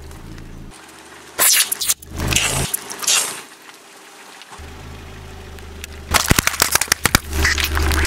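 A car tyre crushing a plastic shampoo bottle: a sudden loud pop about one and a half seconds in as the bottle bursts, then a hissing spurt as the shampoo jets out, and a run of sharp crackles near the end, with the car's engine idling underneath.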